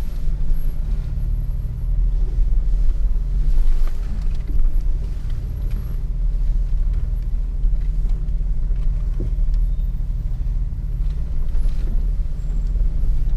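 A 4x4's engine running low and steady as the vehicle crawls slowly over rocks, heard from inside the cabin, with a few faint knocks.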